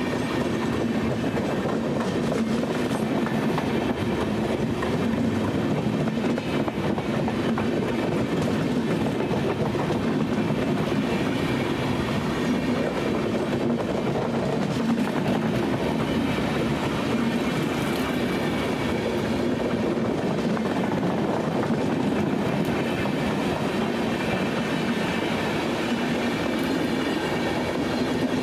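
Passenger train coaches running past at speed on the near track: a steady, unbroken rolling rumble of steel wheels on the rails.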